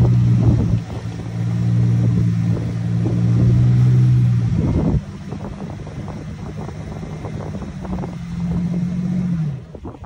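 Ford Ranger Raptor's 3.0-litre V6 petrol engine held at steady revs. Its note drops sharply about five seconds in, a quieter steady note carries on, and it falls in pitch as the revs come down near the end.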